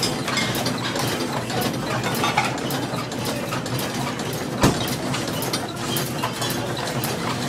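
Coin-operated mechanical horse ride running: its motor and gear drive clatter steadily with a run of ratchet-like clicks about two a second, and one louder knock a little past the middle.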